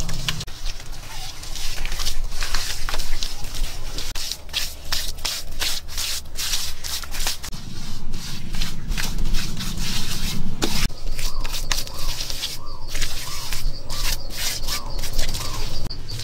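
Hands rubbing and smearing wet mud plaster onto a wall, with scraping and many sharp clicks. Near the end, a thin, high, pulsing insect trill.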